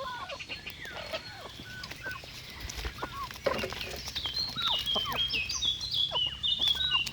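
Chickens clucking in short, falling calls, with a small songbird singing a rapid run of high notes over them from about four seconds in.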